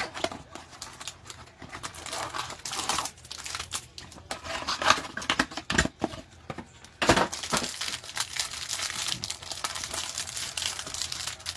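Cardboard trading-card hanger box being torn open and pulled apart, then the plastic wrap around the card stack crinkled off, in irregular rustles and crackles. There are two louder, sharper rips about six and seven seconds in.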